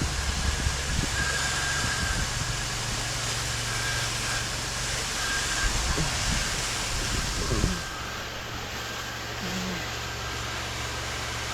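Pressure washer running, its engine giving a steady low hum under the hiss of the spray as soap solution still in the line is sprayed onto gutter trim. The hiss thins out a little about eight seconds in.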